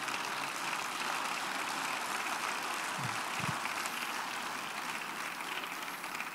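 Congregation applauding steadily, then dying away near the end, with a brief low voice about three seconds in.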